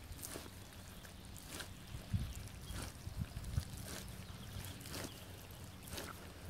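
Rubber wellington boots squelching and sucking in thick wet mud as the feet are worked and pulled, a wet squelch every second or so. A few heavier low thuds come in the middle.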